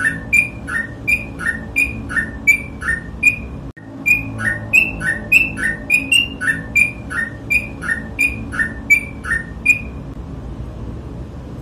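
Yellow-vented bulbul singing a rapid, steadily repeated two-note whistled phrase, a lower note then a higher one, about two and a half pairs a second. It breaks off for a moment a little under four seconds in, resumes, and stops about ten seconds in, leaving a low steady hum.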